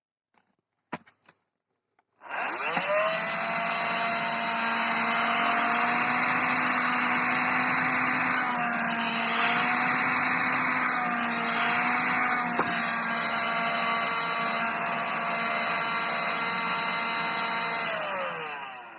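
A few clicks, then an Electrolux ZB3103 10.8 V cordless stick vacuum's motor whines up to speed, runs steadily with a slight wavering of pitch midway, and spins down near the end: a test run on its newly fitted lithium battery pack.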